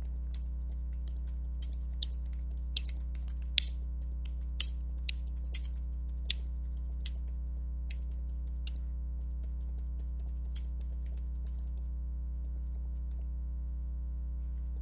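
Typing on a computer keyboard: a quick, uneven run of keystrokes that grows fainter and sparser about two-thirds of the way through, over a steady low hum.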